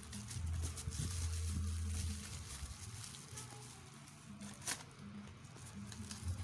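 Clear plastic packaging being cut and torn open with a knife: crinkling and rustling plastic with a few sharp clicks, over a low hum that comes and goes.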